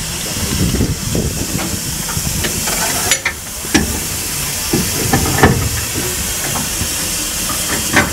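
Saxon IV K narrow-gauge steam locomotive standing, steam hissing steadily, with a few sharp metallic knocks about three, four and five and a half seconds in.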